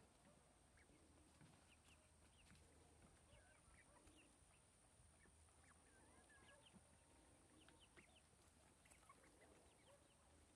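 Faint, scattered peeping and short calls of young Dorking chickens foraging.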